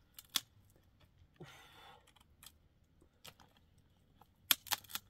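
Scattered small clicks and knocks, as of objects being handled, with a brief rustle about one and a half seconds in and a quick cluster of sharper, louder clicks near the end.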